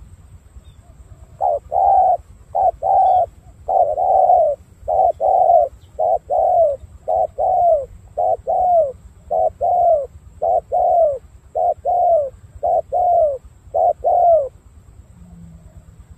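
Spotted dove cooing: a long run of about twenty short coos, many in pairs, each falling in pitch at its end. The calls start about a second and a half in and stop near the end.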